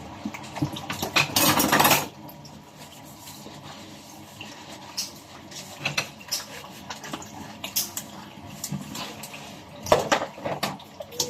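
Dishes and cutlery clinking and knocking against each other, with a short gush of running water about a second in.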